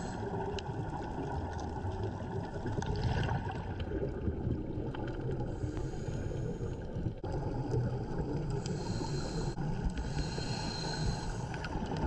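Underwater ambience picked up through a camera housing on a reef dive: a steady muffled rumble with faint scattered clicks and occasional stretches of hiss.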